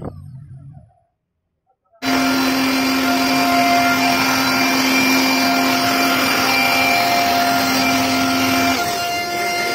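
CNC router running with a steady whine over a loud noise. It starts abruptly about two seconds in, and one of its steady tones shifts up in pitch near the end.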